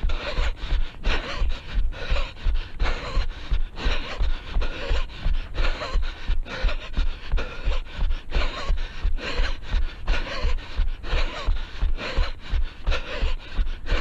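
A runner breathing hard in a quick, even rhythm, with the steady thud of footfalls beneath.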